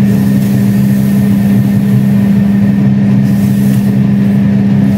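A loud, steady low machine hum that does not change, with a faint hiss over it.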